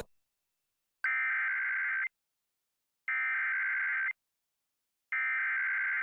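Emergency Alert System SAME header: three bursts of buzzy digital data tones, each about a second long with about a second of silence between them, opening an emergency alert broadcast for a severe thunderstorm warning.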